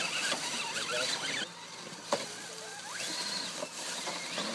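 Radio-controlled scale rock crawler running over rocks: the small electric motor and gears whine, the pitch wavering up and down with the throttle, with a sharp click about two seconds in.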